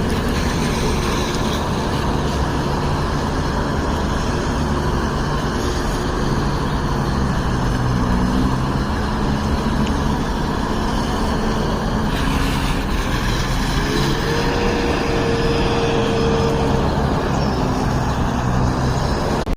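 Street-cleaning vacuum truck running, a steady loud engine-and-suction noise. About two-thirds through, a higher tone rises and holds for a few seconds.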